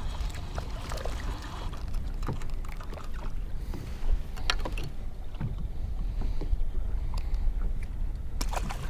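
Wind rumbling on the microphone and water lapping around a small fishing boat, with a knock about four seconds in and a few sharp clicks near the end as a fishing rod and a just-caught crappie are handled.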